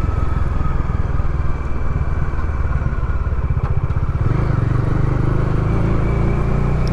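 Motorcycle engine running while riding, heard through a lavalier mic inside a closed full-face helmet. About four seconds in, the engine note changes to a steadier, slightly higher hum.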